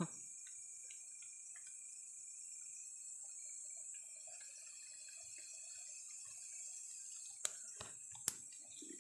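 Steady high-pitched drone of night insects, with faint scattered handling ticks and two sharp clicks about a second apart near the end.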